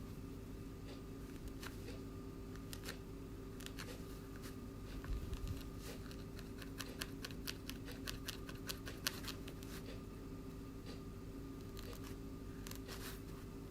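Light, irregular clicks and snips of small handcraft work on a doll-sized felt piece, coming in quick clusters over a steady low hum.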